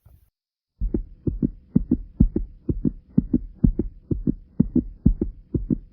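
A person's heart beating fast, in evenly spaced lub-dub pairs at about two beats a second, racing after 40 jumping jacks. The beats are faint at first and get much louder about a second in.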